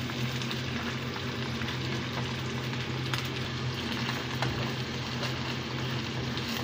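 Tuna with onion and garlic sizzling in a frying pan over a gas flame as it is stirred with a wooden spatula, with scattered light knocks of the spatula on the pan. A steady low hum runs underneath.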